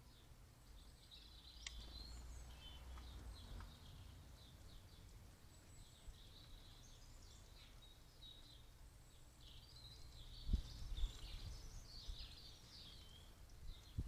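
Faint birdsong, many short chirps and twitters from small birds, over a low rumble of wind on the microphone, with a stronger gust buffeting about ten seconds in.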